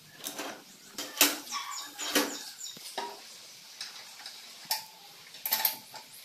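Metal hand tools clinking and knocking against a steel buggy frame and checker-plate floor as bolts are worked with spanners: a handful of irregular sharp metallic clicks, the loudest a little over a second in.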